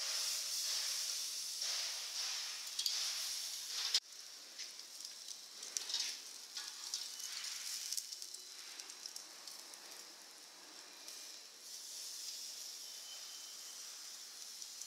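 Pork neck sizzling on a charcoal grill: a steady high hiss with scattered pops and crackles. The sound drops suddenly about four seconds in and carries on more quietly.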